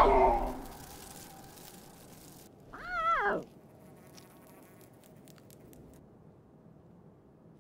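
Animated lion cub's attempt at a roar: one short call about three seconds in, rising and then falling in pitch, after a brief cry at the very start.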